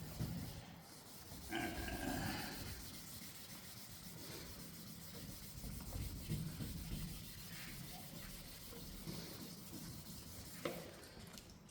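Wet-and-dry sandpaper rubbing back and forth by hand over a plastic headlight lens in wet sanding, with a short pitched sound about one and a half seconds in and a sharp click near the end.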